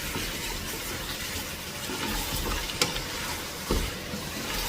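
Beef and tomatoes sizzling steadily in a pan as they are sautéed and stirred, with a utensil knocking against the pan a couple of times.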